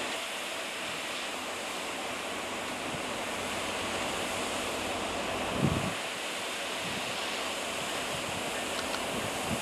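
Steady rushing hiss from the rotary snow plow's stack as its white plume vents, with one brief low thump a little past halfway.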